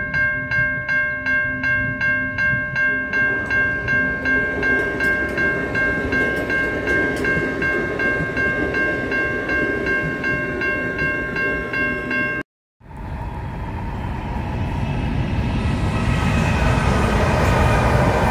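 Level crossing warning bell ringing about twice a second as an electric multiple unit train approaches, its running noise growing beneath the bell. After a cut, NR class diesel-electric locomotives hauling The Ghan pass over a rail bridge, the rumble growing louder.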